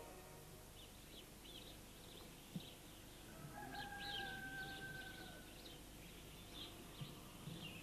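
Faint birdsong after the music stops: short high chirps scattered throughout, with one long, level call lasting about two seconds that begins about three seconds in.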